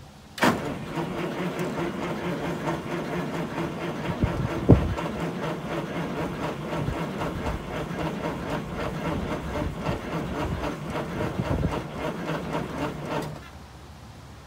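Starter cranking a cold 8V71 two-stroke Detroit Diesel at 15°F, a fast, even chugging that starts abruptly and runs for about thirteen seconds before stopping; the engine does not catch, too cold to start without ether.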